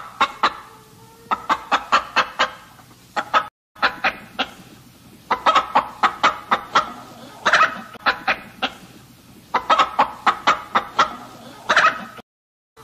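Chicken clucking: runs of short, sharp clucks with brief pauses between the runs. The sound cuts out briefly about three and a half seconds in and again just before the end.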